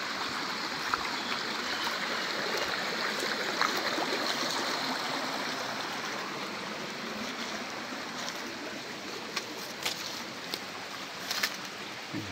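Steady rush of a forest stream flowing, easing slightly toward the end, with a few sharp clicks and rustles from walking through undergrowth.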